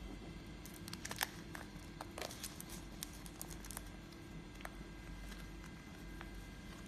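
Crinkling and crackling of a heat-shield sheet, stainless-steel foil on a fibre backing, as it is folded and pressed by hand. Scattered small crackles, thickest in the first four seconds and sparser after.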